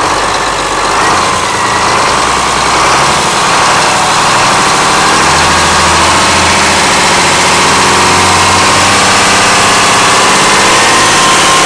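Yanmar 6CXM-GTE2 six-cylinder turbocharged marine diesel running close up, getting louder over the first few seconds as it is throttled up, then holding steady at the higher speed.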